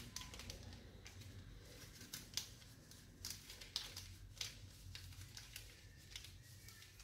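Faint, irregular scraping and rustling of a small spatula pushing baking powder through a wire-mesh sieve.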